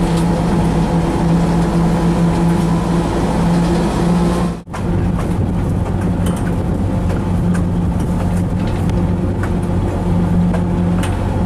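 GE 70-ton diesel locomotive running while under way, heard from inside the cab as a steady engine drone. The sound drops out sharply for a moment about four and a half seconds in, then the drone carries on with light clicks and rattles over it.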